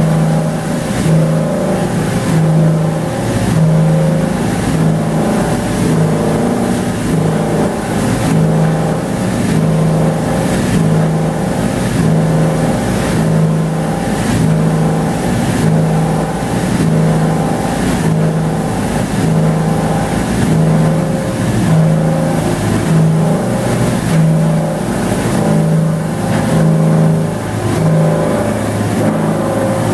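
Plastics recycling line running: conveyors and granulators make a loud, steady industrial hum with a low pulse about once a second.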